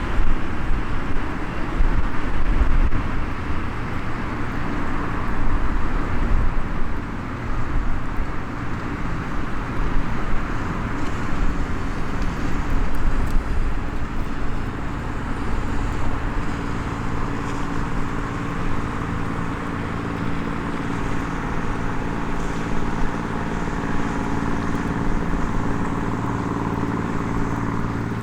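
Steady outdoor rumble and hiss like distant road traffic, with a low engine hum coming in about halfway through and a few faint crackles from a small campfire.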